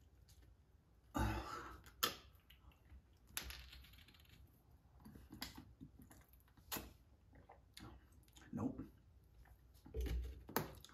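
A person eating: quiet chewing and mouth sounds broken by a scattering of short, sharp clicks and crunches.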